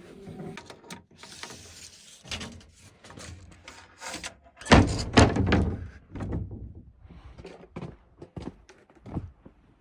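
A run of knocks, thumps and clatter from objects being handled and worked, the loudest a heavy thump about five seconds in.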